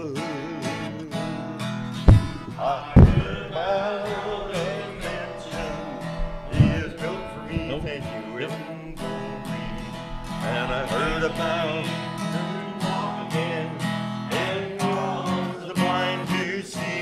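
Acoustic guitar strumming a steady country-gospel rhythm as the instrumental break between verses of a hymn. A few heavy low thumps come about two, three and six and a half seconds in.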